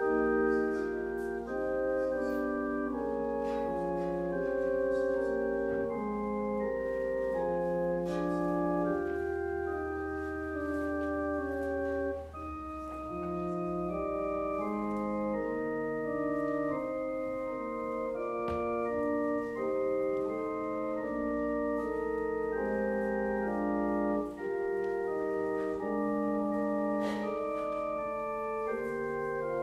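Organ playing slow music: sustained chords that change every second or so over long held bass notes.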